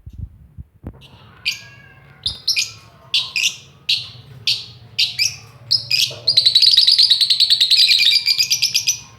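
A lovebird calling: sharp, high chirps about twice a second, breaking into a loud, fast chattering run for the last three seconds. A few soft knocks come just before the first chirp.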